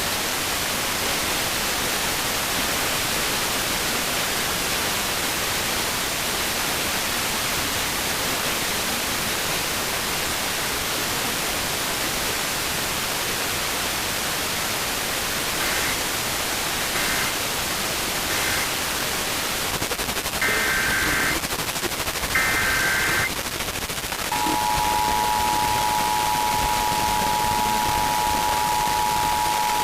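Radio receiver static hiss, then several short, screeching bursts of Emergency Alert System SAME digital header tones, the last two louder. The steady two-tone EAS attention signal (853 and 960 Hz) then begins and holds through the final seconds, announcing an alert.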